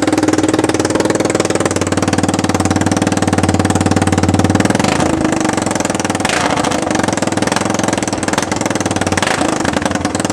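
Yamaha Timberwolf 250 ATV's single-cylinder four-stroke engine idling steadily through a homemade open straight-pipe exhaust with no tip fitted, never revved.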